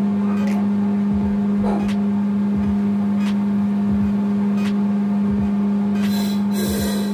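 Machinery running with a loud, steady, even-pitched hum, with soft low thuds about every 0.7 s. A short hiss comes about six seconds in.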